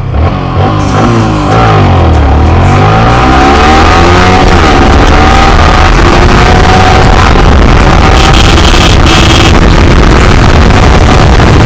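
Yamaha R15 V3's 155 cc single-cylinder engine at full throttle, revving up and dropping back with each upshift while accelerating hard from a standstill, with wind rush on the microphone.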